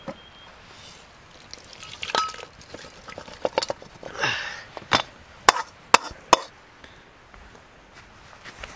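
A string of sharp, unevenly spaced knocks, like chopping strokes on wood, loudest about five and a half and six seconds in, with a short scraping rustle about four seconds in.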